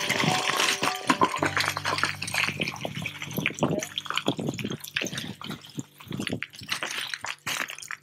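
Boots scrambling over loose rock and scree, stones clicking and clattering in quick irregular knocks.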